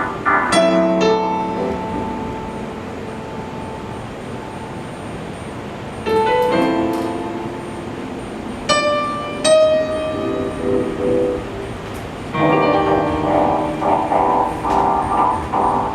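Piano played in separate phrases: struck notes and chords ringing out and fading, then a dense run of quick repeated chords from about twelve seconds in.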